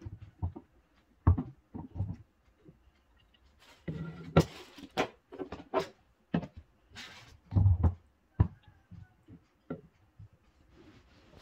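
Hollow plastic knocks, clicks and scrapes as a plastic rice dispenser container is handled, its lid pressed and the unit set in place: a dozen or so sharp knocks with a few short scraping stretches in between.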